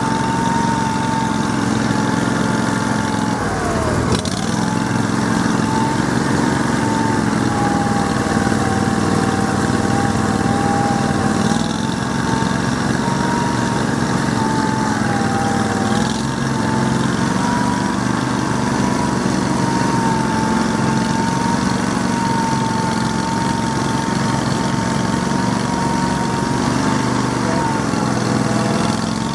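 Small engine of an Argo amphibious ATV running steadily, its pitch dipping sharply about four seconds in and briefly again around sixteen seconds before coming back up.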